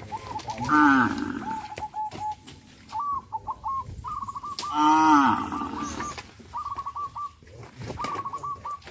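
Cattle mooing: two loud moos, one about a second in and one around five seconds in, with a series of short, repeated high calls between them.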